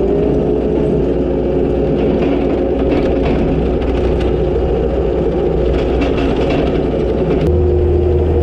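Takeuchi TL250 compact track loader's diesel engine running as it travels across gravel, with a steady whine over the engine note. About seven and a half seconds in, a deeper hum comes up and the whine shifts pitch.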